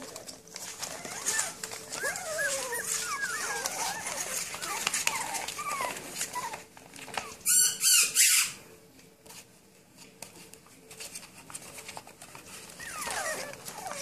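Young puppies whimpering and squeaking in short, high, wavering cries, with paws scratching and rustling on paper and cardboard. A loud, brief sharp sound about eight seconds in, then a quieter few seconds before the whimpers start again near the end.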